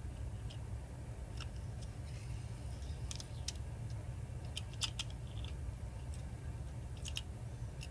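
Scattered light clicks and taps, some in quick pairs, of a precision screwdriver and small parts against a Samsung Galaxy A52's frame and motherboard as the board is worked loose, over a steady low hum.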